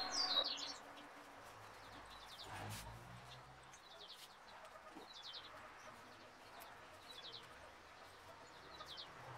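Small bird chirping in the background: short high chirps, each a quick little trill of a few notes, repeating about every second.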